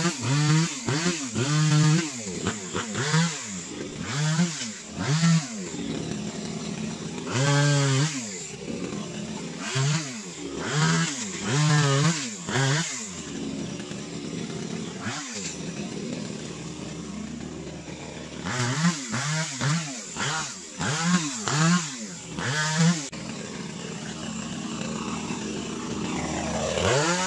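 Echo CS3000 top-handle two-stroke chainsaw revving in short bursts, about one a second, while cutting brush. It settles to a steady idle between runs of cuts.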